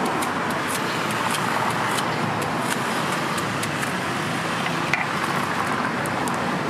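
Steady road traffic noise, with many small clicks and taps scattered over it.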